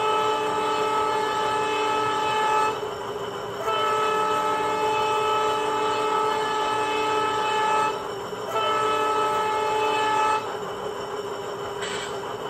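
Loksound 5 decoder in an HO scale WDG4 diesel locomotive model playing its multi-note air horn sound through the model's speaker: three long blasts, the first ending under three seconds in, the second running about four seconds, the third about two, over the steady sound of the idling diesel. A brief hiss near the end.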